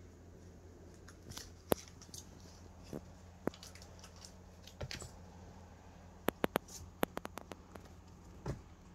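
Scattered light taps, clicks and rustles of kittens playing with toys on a wooden floor and a cardboard scratcher, with a quick run of sharp clicks a little past the middle. A low steady hum runs underneath.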